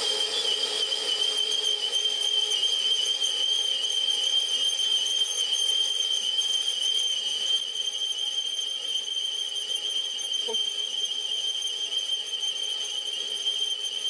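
Sieg SC4 mini lathe turning at 200 rpm while a parting tool, fed in by the cross-slide power feed, cuts a groove into a cast-iron cylinder cover: a steady high-pitched whine with a slight waver.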